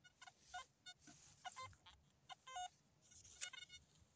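Metal detector giving a series of short, irregularly spaced electronic beeps as its coil passes over a target: a capped glass beer bottle lying in the grass.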